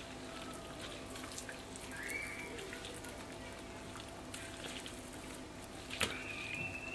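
Faint wet handling of a boiled beef tongue as its skin is peeled off by gloved hands, with small clicks and a sharp click about six seconds in, over a faint steady hum. A cat meows near the end.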